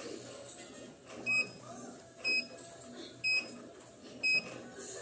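Electronic beeps from a treadmill console: four short, high beeps of the same pitch, about one a second.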